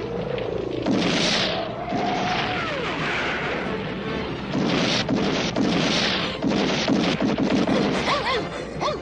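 Cartoon battle sound effects: a run of explosions and rapid gunfire, with laser-gun zaps whose pitch sweeps up and down in short arcs.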